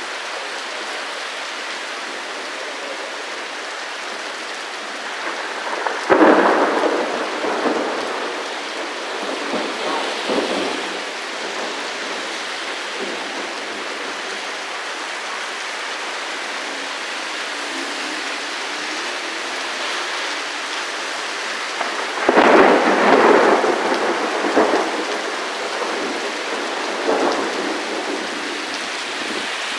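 Steady heavy rain with two claps of thunder, one about six seconds in and one about twenty-two seconds in. Each rolls on and fades over several seconds with smaller after-rumbles.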